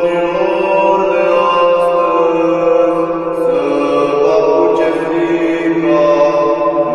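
Men's voices singing a Romanian Christmas carol in a slow, chant-like style: long held notes over a steady low drone.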